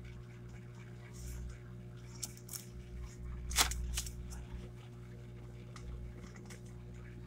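Faint rustling and ticking of a sheet of paper being handled, with one sharp click about three and a half seconds in, over a steady low hum.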